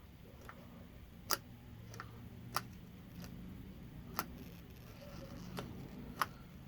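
A few sharp single clicks a second or two apart, over a faint low hum: small momentary push-button switches in a 1967–68 Mustang overhead console map-light housing being pressed to test them.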